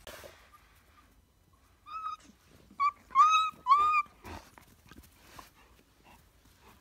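Briard puppy giving four short, high-pitched whimpers in quick succession about two to four seconds in, each rising and then falling in pitch. Light rustling and scattered soft clicks come before and after.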